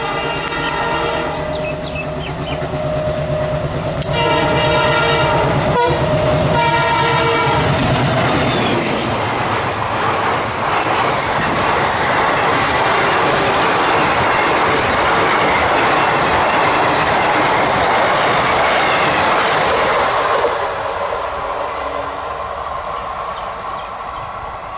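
ALCO WDM-3D diesel locomotive sounding its horn in about three long blasts as it approaches, its engine throbbing underneath. It then passes at speed, and its passenger coaches rush and clatter over the rails for about twelve seconds before the sound fades away.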